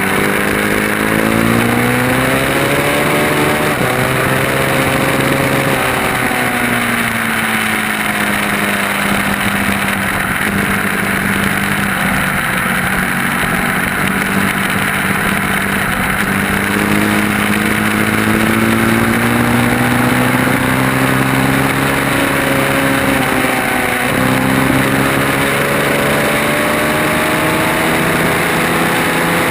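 Onboard sound of a vehicle engine lapping a race track under hard use: its pitch climbs and falls several times as it revs through the gears and slows for corners, over a loud rush of wind.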